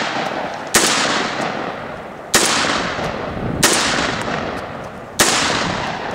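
Derya Lion X6 semi-automatic shotgun fired four times in quick succession, about a second and a half apart, each blast followed by a long echoing decay.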